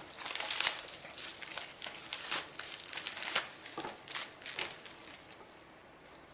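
Plastic packaging crinkling and rustling in irregular bursts as a tightly wrapped rope is handled and unwrapped, dying away about five seconds in.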